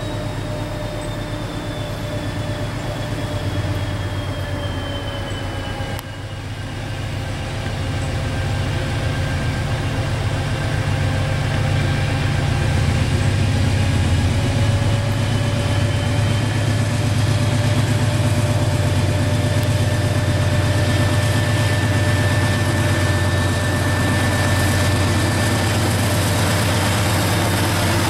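Diesel-electric freight locomotive running as it approaches, a heavy low engine drone that grows louder a few seconds in and then holds steady. A thinner whine drifts slowly up and down in pitch over it.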